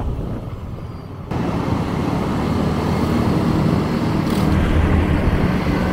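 Motor scooter ride in city traffic: the scooter's engine running and the rumble of the road and surrounding traffic. The sound steps up suddenly a little over a second in.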